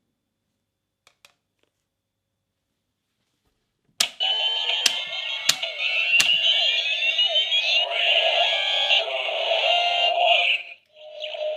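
Kamen Rider Fourze Driver toy belt sounding off: four sharp clicks of its switches in quick succession, then loud electronic standby effects with rising whines and alarm-like tones. They break off briefly near the end and start again on a steady tone.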